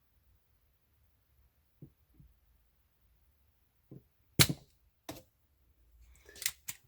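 A few sharp clicks and snaps from tools handled at an electronics workbench during soldering, the loudest about four and a half seconds in and a pair near the end.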